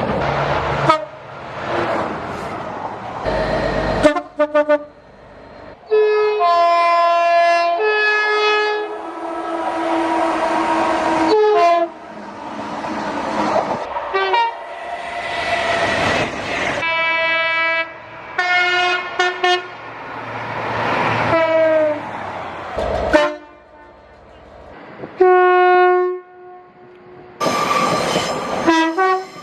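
A run of short clips of British trains sounding their two-tone horns, high and low notes alternating, some held long and some short, with the noise of passing trains between them. The clips cut abruptly from one to the next.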